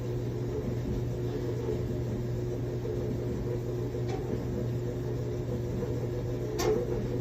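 Samsung clothes dryer running with a steady low rumble and hum, with a faint tick about four seconds in and a sharper click near the end.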